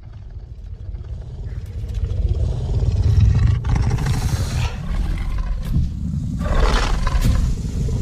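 Carnotaurus creature sound effect: a deep, rumbling growl that builds in loudness over the first few seconds, with harsher roaring surges about four and six and a half seconds in.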